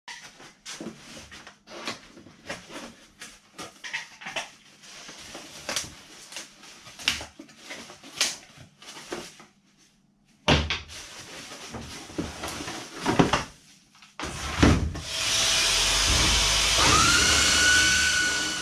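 Cardboard box and plastic packaging being handled as an electric sander is unpacked: a string of light knocks and rustles. Later, a power tool starts and runs steadily, with a whine that rises and then holds as the sander's motor comes up to speed.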